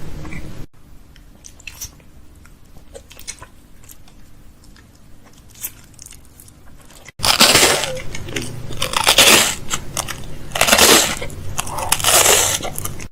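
A quiet stretch with a few faint clicks, then from about halfway through four loud crunching noises close to the microphone.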